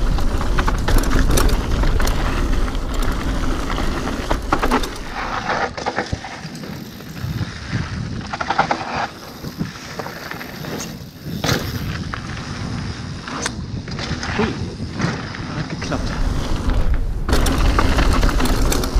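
Mountain bike ridden fast down a dirt flow trail: wind rumbling on the helmet or bike camera's microphone, tyres rolling on packed dirt and the bike rattling, with sharp knocks over bumps. The wind rumble eases for a while in the middle and comes back strong near the end.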